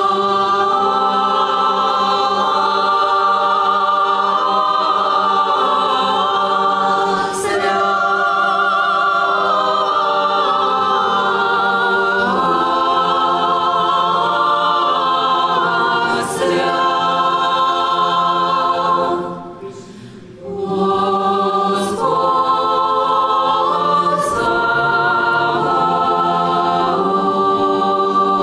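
Church choir singing a liturgical hymn in held, multi-voiced chords, with a short breath pause about two-thirds of the way through before the next phrase.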